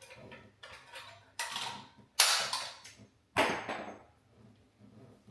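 Clicks and clattering knocks from a recessed LED can light's junction box being worked by hand as a piece of it is notched out, with three louder knocks about a second apart.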